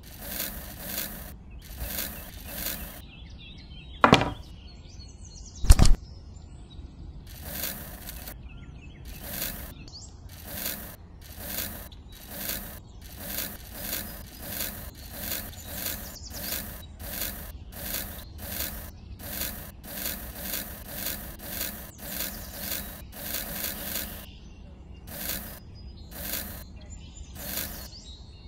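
Seeds being sown by hand onto a tray of sand: a steady run of short gritty rubbing scrapes, about one or two a second. Two sharp knocks about four and six seconds in stand out louder than the rest.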